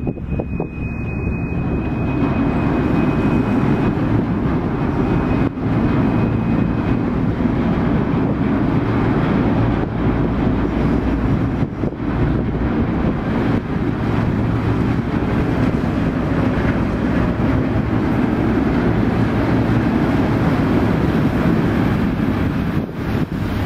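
A ship's diesel engine running close by, a steady low drone.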